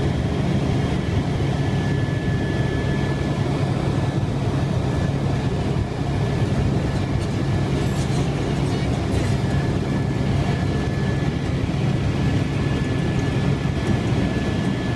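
Helicopter cabin noise in flight: a steady, dense drone of rotor and engine heard from inside the cabin, with a thin, steady high whine running through it.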